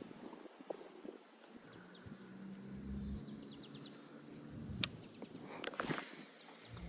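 Faint outdoor background noise with a short run of quick, high chirps about three seconds in, a low hum in the middle, and a few sharp clicks near the end.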